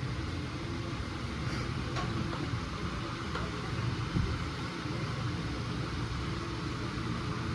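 Motorcycle engine running steadily with a low rumble and a few faint clicks.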